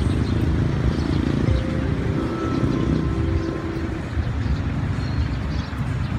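Steady low rumble of outdoor background noise, with faint tones coming and going around the middle.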